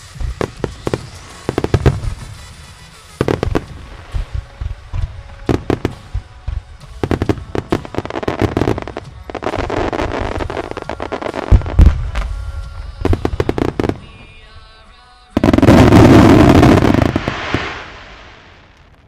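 Starmine fireworks display: rapid shell bursts and crackling salvos, building to a dense, very loud barrage about fifteen seconds in that dies away near the end, with music playing behind.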